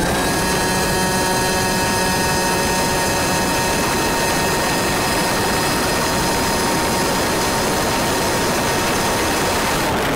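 100cc two-stroke kart engine running at a steady pitch, heard on board the kart, with a rush of wind and road noise underneath.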